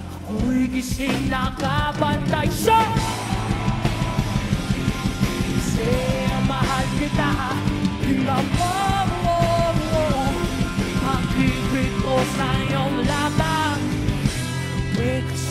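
Live rock band playing, electric guitars, bass and a drum kit keeping a steady beat, with a male lead singer singing into a handheld microphone over them.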